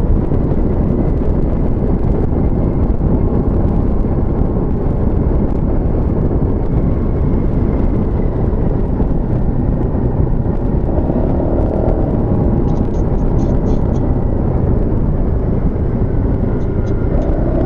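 Steady wind rush on the rider's microphone, with the Honda Forza MF15 scooter's engine running underneath while cruising.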